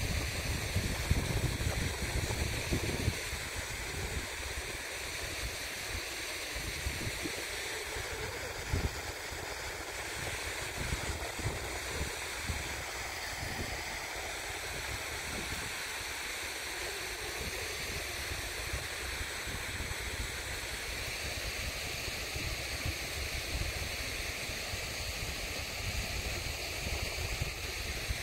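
Steady rushing water, an even hiss, with low wind buffeting on the microphone in the first few seconds.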